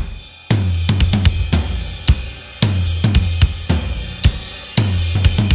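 Music opening with a drum-kit beat: kick, snare and cymbal hits over a low bass line. A single hit sounds first, and the full beat comes in about half a second in.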